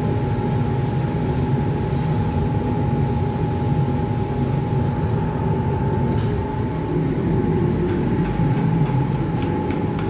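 Steady low mechanical drone with a constant high-pitched whine over it.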